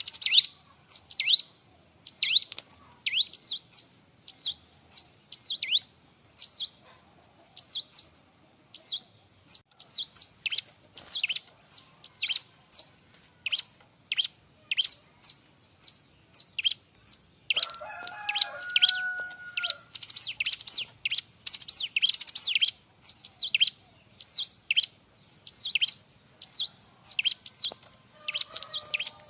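Bar-winged prinia (ciblek) calling busily: a long run of sharp chirps, each sweeping downward, about two a second. About eighteen seconds in the chirps come faster, and a lower whistled note joins briefly.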